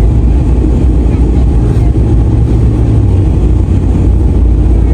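Snow-plow truck running: a loud, steady low engine and drive rumble.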